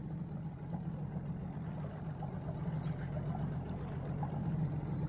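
Inflatable boat's outboard motor running at a steady speed, a constant low hum.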